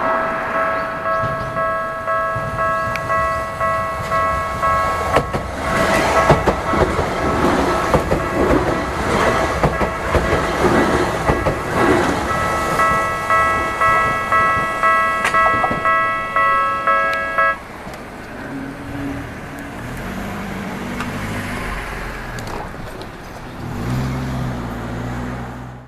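Japanese railway level-crossing alarm ringing in an even, pulsing beat while a train passes, its wheels rumbling over the rails for several seconds. The alarm cuts off suddenly about two-thirds of the way in, leaving a lower, steadier running sound.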